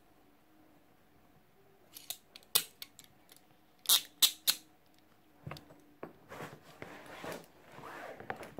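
Metal UK speed cuffs being handled: a string of sharp metallic clicks, then a stretch of rattling and rubbing near the end.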